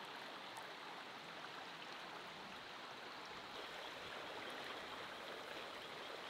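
Shallow river running over a stony riffle: a steady, faint rushing of water.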